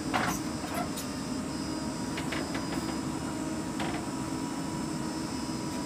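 Diesel engine of a JCB 3DX backhoe loader running steadily while its rear bucket digs into soil, with a tractor engine idling alongside. A few short knocks from the digging are heard over the drone.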